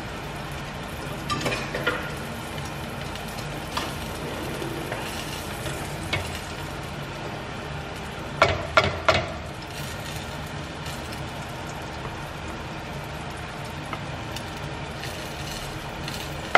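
Hot oil sizzling faintly in an emptied frying pan on a lit gas burner, with a few scattered clicks of utensils. About eight seconds in comes a quick cluster of sharp knocks: a utensil tapping against a pot as mashed potato is scooped out.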